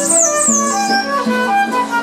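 Flute and concert harp playing a melody together: the flute's held notes over plucked harp notes.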